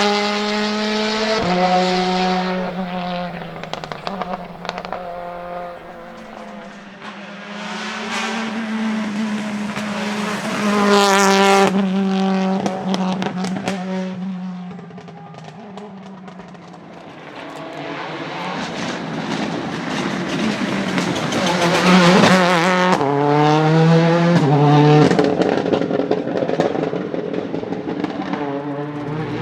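Ford Focus WRC rally car's turbocharged two-litre four-cylinder engine revving hard through the gears. Its pitch climbs and drops back with each shift, with sharp cracks in between. The sound swells and fades more than once.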